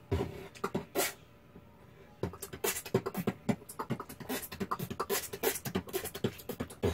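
A beginner's beatboxing, a man making kick, snare and hi-hat sounds with his hand cupped over his mouth. A few hits, a short pause, then a fast, busy run of beats that stops abruptly at the end.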